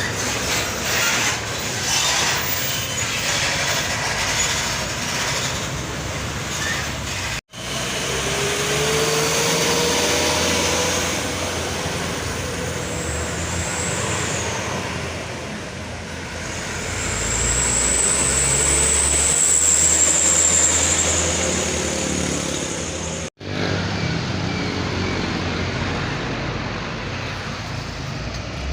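Heavy trucks running along a road: steady diesel engine and tyre noise, swelling louder with a faint high whine for a few seconds in the middle part. The sound breaks off abruptly twice.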